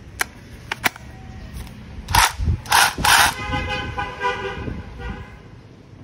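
A few sharp plastic clicks in the first second as an 18V Makita lithium-ion battery pack slides and latches onto the rotary hammer. About two seconds in come two short, loud noisy blasts, followed by a steady horn-like tone held for about a second and a half.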